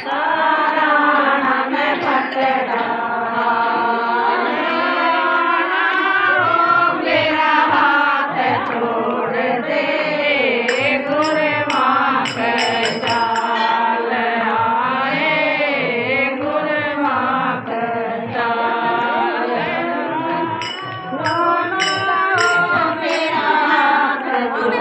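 A group of women sing a Hindi devotional guru bhajan together, with hand clapping. Bright, rhythmic ticking comes in two stretches, about ten seconds in and again near the end.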